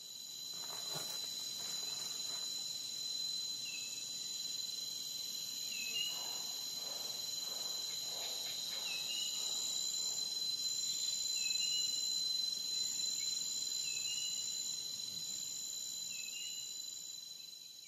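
Insects chirring steadily at a high pitch, fading in at the start and out at the end, with a short high chirp every two to three seconds.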